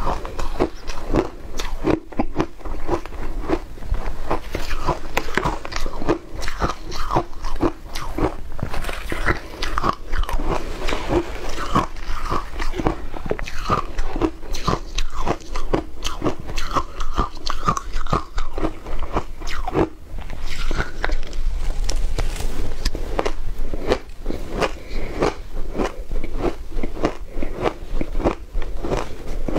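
Close-miked crunching and chewing of mouthfuls of shaved ice dusted with matcha, a dense, unbroken run of crisp crunches.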